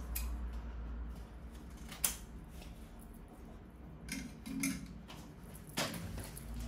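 Small handling noises as a new CMOS coin-cell battery is fitted: three sharp clicks, with light scraping and tapping between them, over a low steady hum.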